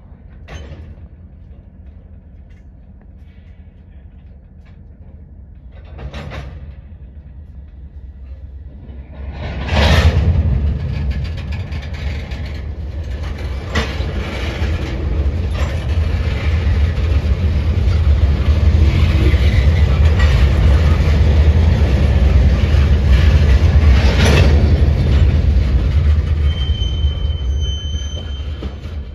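Freight cars rolling past on the rails during a switching move: a low rumble that builds after a loud bang about ten seconds in, with further clanks from the cars. A brief high squeal comes near the end.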